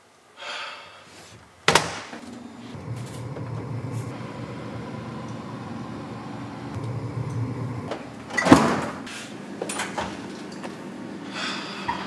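Kitchen cupboard and refrigerator doors being opened and shut, with a sharp knock about two seconds in and a louder thump about eight and a half seconds in, and a low hum between them. Near the end comes the scrape of an oven door being pulled open.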